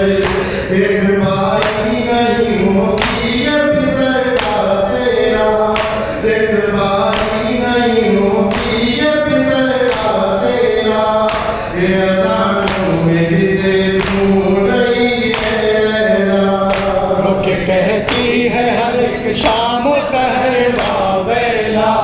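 Male voices chanting an Urdu noha, a Shia lament, without instruments, over a steady beat of sharp strikes about every two-thirds of a second.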